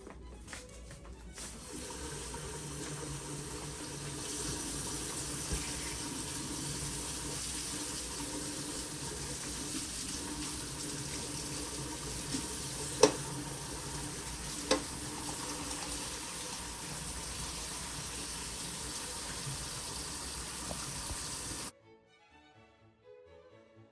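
Tap water running steadily into a sink as hands are washed, starting about a second and a half in and cutting off suddenly near the end. Two sharp knocks sound about halfway through.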